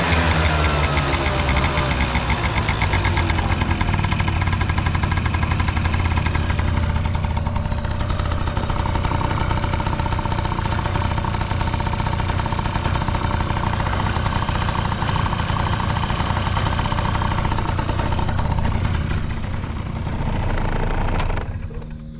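Honda Dio AF18 scooter's 50 cc two-stroke single-cylinder engine idling steadily after settling down from a rev, with no abnormal noise. Near the end there is a click and the engine sound drops away.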